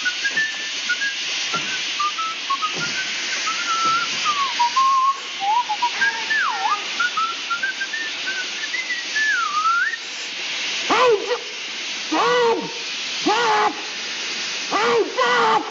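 A steady hiss of escaping steam, with a person whistling a wandering tune over it for about ten seconds. It is followed by several short rising-and-falling whistled or called notes near the end.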